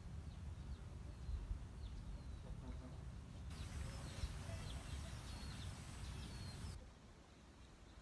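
Faint outdoor ambience: small birds give short, high chirps every second or so over a low rumble. The rumble drops away abruptly near the end.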